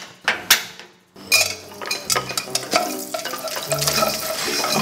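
Popcorn kernels tipped from a bowl into a wok and stirred with a spatula. Two sharp knocks, then after a short lull a dense hiss full of small clicks and rattles as the kernels scrape and sizzle in the pan.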